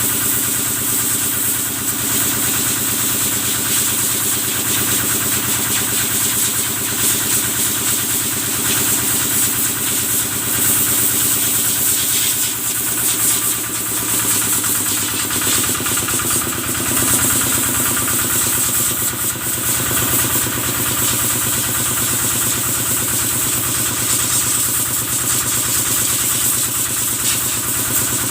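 Kubota engine running steadily, driving the washing machine's water pump, with a constant high hiss of water spray over it.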